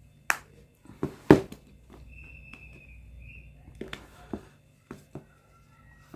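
Plastic back cover of a Samsung Galaxy A03 Core phone being pried off around its edge: irregular sharp clicks and snaps as its clips release, the loudest a little over a second in.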